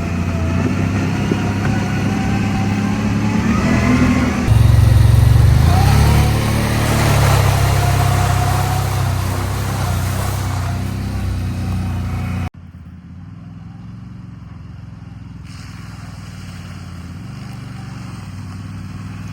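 ATV engine running, getting louder about four seconds in, with the pitch shifting as it revs. About two-thirds of the way through the sound drops suddenly to a quieter, steady engine note.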